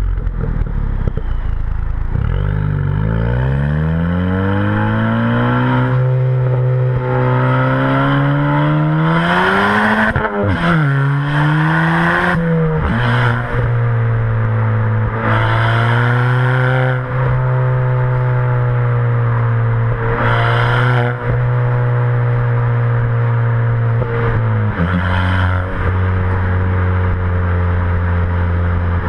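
Exhaust note of a Ford Fiesta ST180's turbocharged 1.6 four-cylinder through a Milltek non-resonated exhaust with a decat, heard at the tailpipes while driving. The revs climb over the first dozen seconds with a couple of gear changes, then hold steady at a cruise and step again near the end. Several short bursts of hiss come in between.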